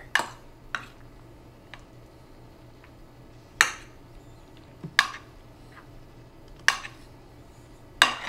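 A metal utensil clinking against a glazed ceramic baking dish while stirring grated cheese into thick cream. There are about six sharp clinks, spaced irregularly a second or more apart.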